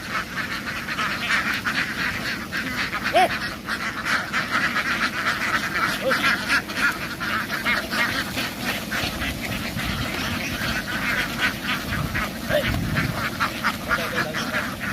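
A large flock of domestic ducks quacking together, many calls overlapping in a continuous loud din.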